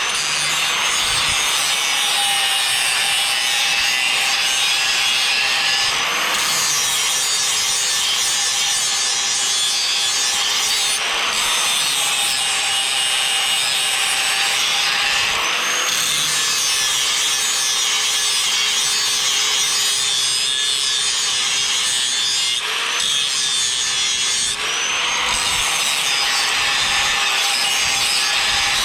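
Electric grinder grinding the steel cutting edge of a mower blade held in a vise, running steadily with a gritty grinding noise. Its motor pitch sags slightly now and then as the disc is pressed into the steel.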